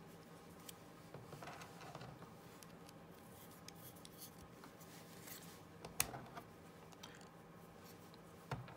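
Faint handling of small plastic parts: a plastic standoff is twisted finger-tight onto a screw through a plastic plate, with light rubbing and a sharp click about six seconds in.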